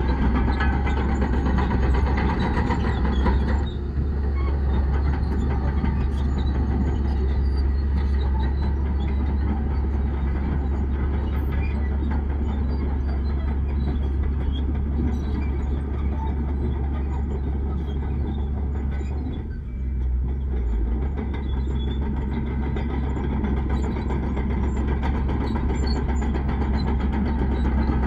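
Heavy diesel earthmoving machinery running steadily under load, the engine easing off briefly twice.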